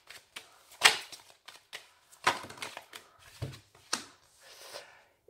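A deck of oracle cards being handled and shuffled, giving a series of sharp card snaps and clicks, the loudest about a second in, as a card is drawn and laid down on a cloth mat.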